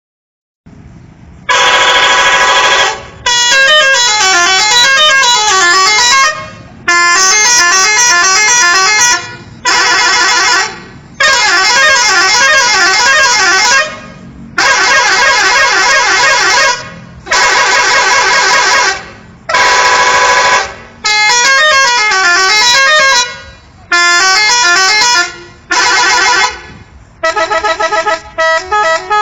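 Indonesian 'telolet' musical multi-tone bus horn playing about a dozen loud melodic blasts, each one to three seconds long with short gaps, its notes stepping up and down in a tune. Near the end it breaks into quick short toots.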